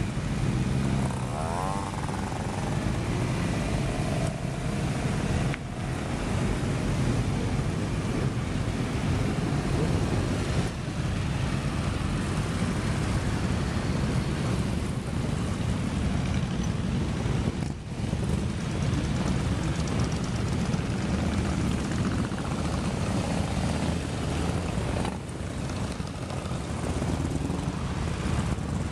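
A long column of motorcycles (sport bikes, cruisers and scooters) passing at low speed, their engines running in a continuous mixed drone. About a second in, one engine's pitch rises and falls.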